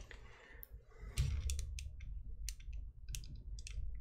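Irregular clicks of a computer keyboard and mouse being worked, a scattering of sharp short clicks, with a dull low bump about a second in.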